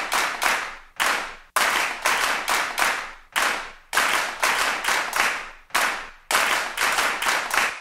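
Rhythmic hand claps, about two to three a second in groups with short gaps. Each clap has a short echoing tail.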